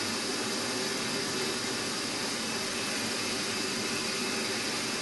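Drilling machine's spindle running steadily as a small twist drill bores through a metal shaft held in a vise, an even, unbroken machine noise.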